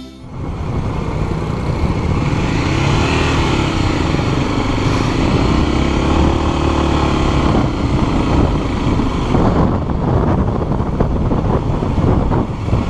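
Motorcycle engine running while riding along a road, its pitch rising and falling with speed, under a steady rush of road and air noise.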